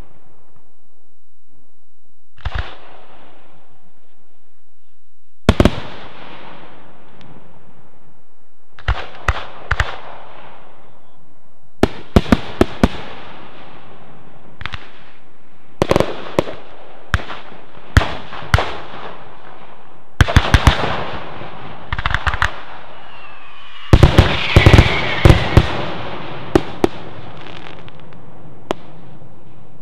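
Aerial firework shells bursting at a fireworks display: sharp bangs with echoing tails, some single and some in quick clusters, growing denser into a rapid volley near the end, with a brief falling whistle among the bangs.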